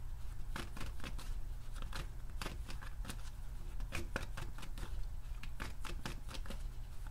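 Tarot deck shuffled by hand, overhand: a quick, uneven run of soft card slaps and flicks, several a second, over a low steady hum.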